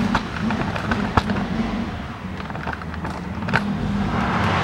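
Electric-hydraulic two-post car lift running as it raises the Mitsubishi Pajero, a steady low motor-and-pump hum with a few sharp clicks.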